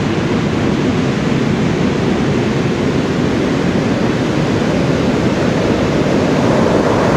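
Big surf breaking: a steady, loud rush of crashing waves and whitewater, growing slightly louder near the end.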